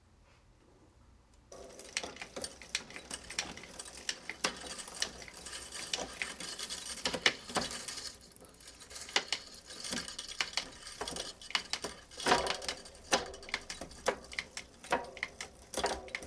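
Mountain bike drivetrain: the chain runs rattling over the sprockets and derailleur as the cranks are turned, with frequent sharp clicks. It starts about a second and a half in. The chain is being tried in the big gears, where it runs unhappily but does not jam.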